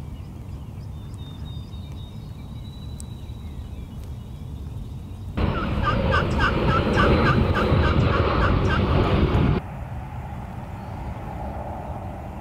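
Wild turkey gobbling, a loud run of quick repeated notes that starts suddenly about five seconds in, lasts about four seconds and cuts off abruptly, over a steady low background rumble.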